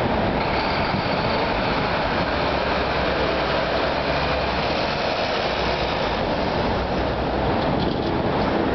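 Prevost H3-45 motor coach's diesel engine running as the coach pulls away from a stop and drives past, a steady rumble mixed with city street traffic.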